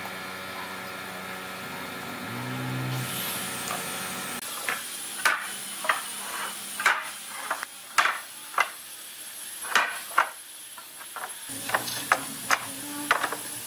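Wooden boards and steel pipe clamps knocking and clinking as pine boards are laid across the clamps and the clamps are set: about a dozen sharp, irregular knocks after a few seconds of steady hum.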